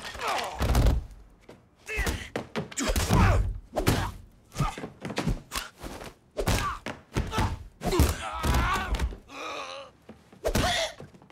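Movie fight sound effects: a rapid series of punches and blows landing as thuds, mixed with the fighters' grunts and groans.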